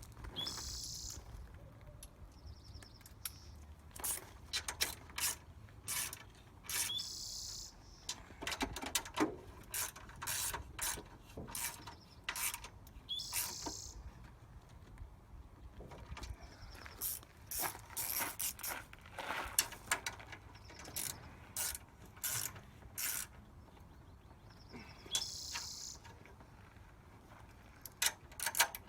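Hand ratchet wrench clicking in short irregular runs as a fastener is turned, with pauses between the runs.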